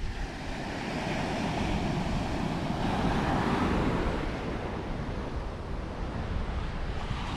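Ocean surf breaking and washing up a sandy beach, a steady wash that swells a little midway, with wind rumbling on the microphone.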